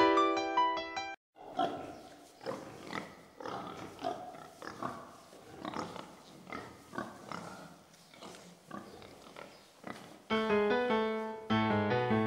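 A farm animal's repeated short noisy calls, several a second and unevenly spaced, between stretches of piano music at the start and near the end.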